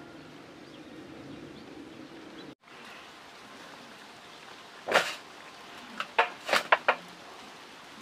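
Chicken carcasses handled and set down on a banana leaf: one sharp slap about five seconds in, then a quick cluster of slaps and knocks a second later. Before that, a low steady hum cuts off abruptly about two and a half seconds in.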